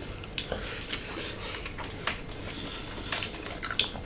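Mukbang eating sounds: fingers picking through a lettuce-and-pork salad in bowls while crisp lettuce is chewed. The result is an irregular scatter of short, soft crackles and clicks.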